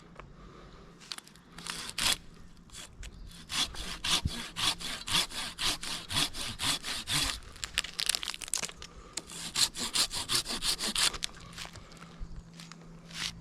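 Hand saw cutting through wood in a steady run of back-and-forth strokes, about three a second, which stop near the end.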